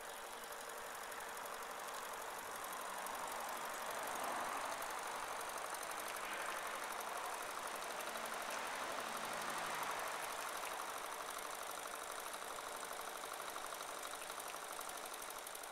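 Small single-cylinder model steam engine running steadily, turning the boat's propeller, with a rapid, even beat. A hiss swells and fades again through the middle.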